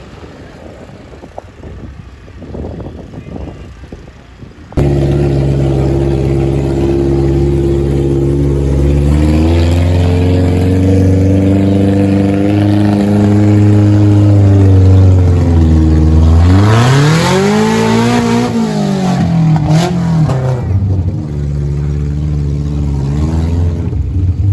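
Low outdoor noise, then about five seconds in a vehicle engine suddenly starts sounding loud and close, running steadily. Near the end it revs up and back down once before settling again.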